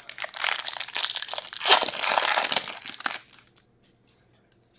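Foil wrapper of an Upper Deck hockey card pack being torn open and crinkled, a dense crackling rustle for about three seconds that stops abruptly, followed by a few faint ticks of cards being handled.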